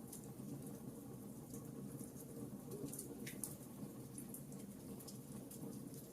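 Campfire burning: a steady low rumble with scattered small crackles and pops, one slightly longer crackle a little after three seconds in.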